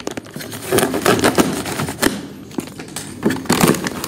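Plastic packaging being pulled and handled: a dense run of irregular crackles, rustles and sharp snaps.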